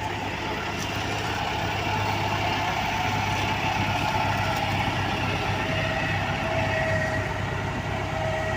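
Heavy road-paving machinery running steadily: a constant engine drone with a low hum and a faint whine that dips slightly in pitch near the end.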